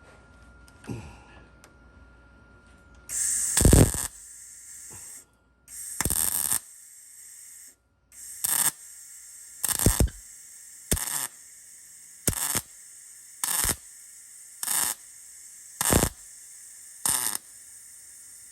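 MIG welder arc crackling as a sheet-metal patch is welded into a car's rear quarter panel. It starts with two sustained welds of about a second each, then goes into short stitch-weld bursts of about a quarter second, roughly one every 1.2 seconds.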